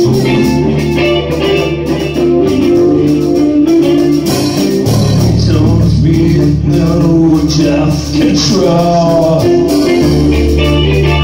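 Amplified rock band playing: electric guitars and bass guitar over a drum kit, with held bass notes and a steady strummed chord pattern.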